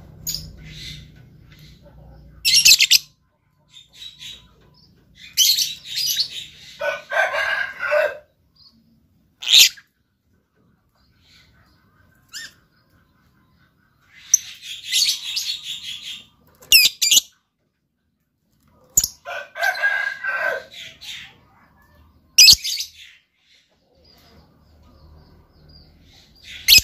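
Lovebird calling in repeated bursts of shrill chirping and chattering, each a second or two long, with short silent pauses between them.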